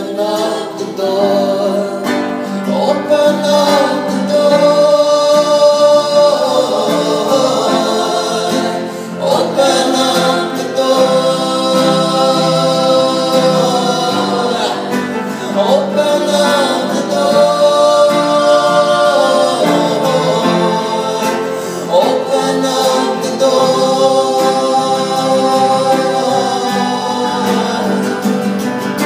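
A small group of voices singing in harmony, holding long notes and moving from chord to chord every few seconds.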